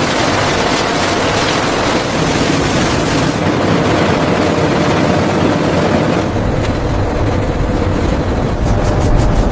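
Factory machinery running: a loud, steady mechanical noise with a faint hum, joined by a deeper rumble about six seconds in and a quick run of clicks near the end.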